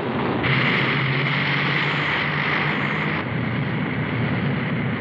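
Propeller aircraft engines droning steadily. A brighter rushing hiss rides over the drone for about three seconds, starting about half a second in.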